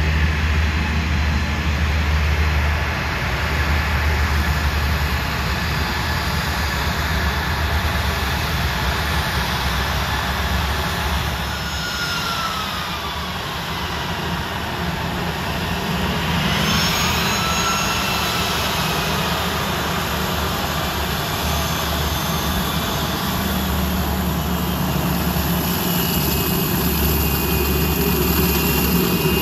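Turbofan engines of a taxiing Embraer ERJ regional jet running at low power: a steady low rumble under a high turbine whine that slides down and back up in pitch around the middle and again near the end.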